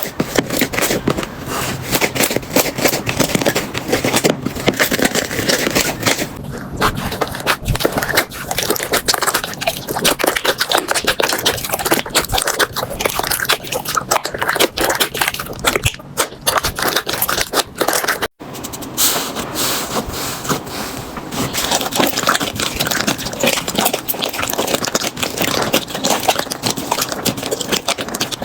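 Slime being squeezed and worked by hand, making dense fine clicking and crackling throughout, with a brief break about two-thirds of the way in.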